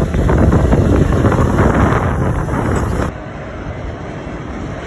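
Heavy wind buffeting the microphone over the sound of a lorry passing close by. It cuts off suddenly about three seconds in, leaving quieter steady road and wind noise as another lorry approaches in the distance.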